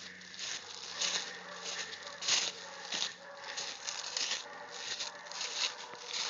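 Footsteps crunching through dry leaf litter, a step about every half second.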